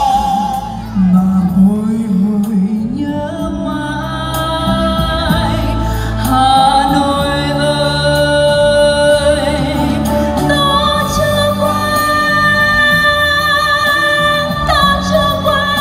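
A woman singing a song with long held notes over backing music.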